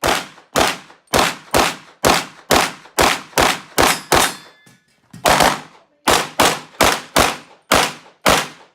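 Rapid pistol fire: about seventeen shots at roughly two a second, each with a short ringing tail, with a pause of about a second around the middle.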